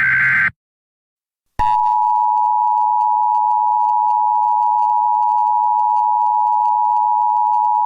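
Emergency Alert System SAME header: a burst of buzzing data tones ends about half a second in. After a second of silence the steady EAS attention tone starts and holds.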